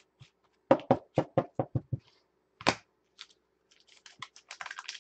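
Baseball trading cards being handled: a quick run of about seven sharp taps about a second in, one more tap, then fast papery rustling near the end.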